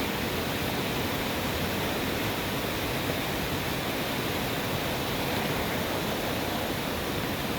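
Waterfall cascading down into a series of pools: a steady, even rush of falling water.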